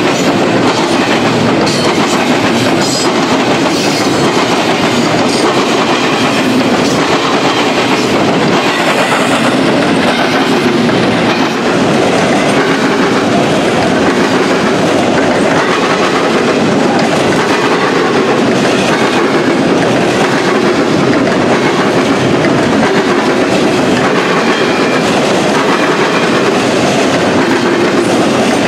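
CSX double-stack intermodal freight train passing close by: a loud, steady rumble of steel wheels rolling on the rails under the container well cars.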